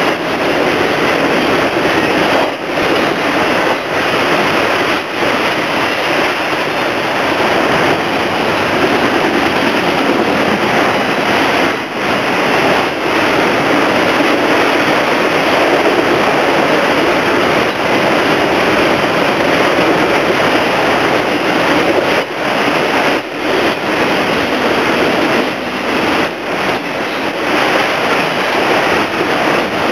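Steady rushing rumble of a freight train's autorack cars rolling past, steel wheels running on the rails, with a few brief dips in the noise scattered through it.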